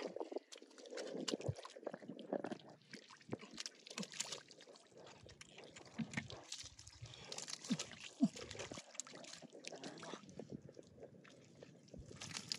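Hands digging and squelching through wet mud among stranded catfish, with irregular wet slaps, sloshes and clicks.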